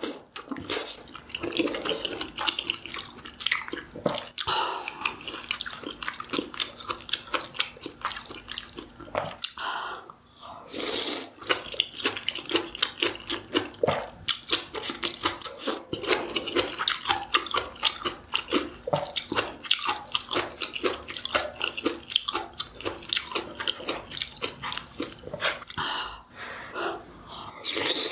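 Close-miked eating sounds: a person chewing and biting, with many small wet mouth clicks following one another irregularly, and a brief noisier stretch about ten seconds in.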